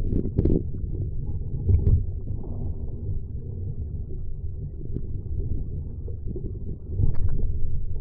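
Gusty wind buffeting the microphone as a low, uneven rumble, with water lapping at a small sailboat's hull. A few light knocks come near the start and again about seven seconds in.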